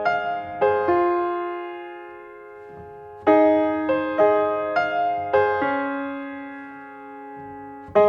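Background music: solo piano playing a slow, gentle melody, phrases of struck notes that ring and fade, with long held chords between them.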